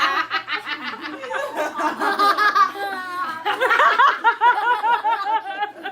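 Several people laughing hard together, with giggles and snickers, and a long run of rhythmic laughter in the second half.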